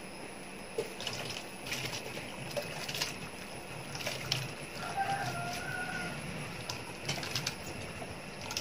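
Soaked basmati rice being tipped from a steel container into a pot of boiling water, with light knocks and scrapes of the metal container against the pot, over the steady hiss of the boiling water. A faint whistle-like call sounds about five seconds in.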